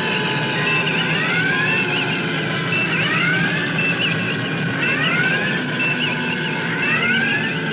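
Looping electronic sci-fi sound effect from the original Star Trek series: a cycle of rising electronic chirps and short blips repeating about every one and a half seconds over a steady low hum.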